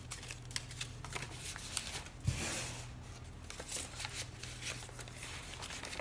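Paper cards and journal pages being handled and shifted on a tabletop: a run of small papery clicks and rustles, with a soft thump and a longer rustling swish just over two seconds in. A faint steady low hum sits underneath.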